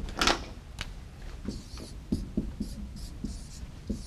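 Marker writing on a whiteboard: a short sharp noise just after the start, then from about a second in a run of short scratchy strokes as letters are drawn.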